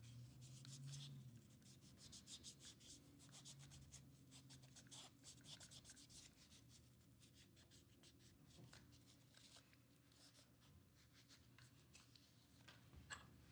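Faint rubbing of an alcohol pad wiping over the parts of a disassembled camera lens, in many quick, light strokes.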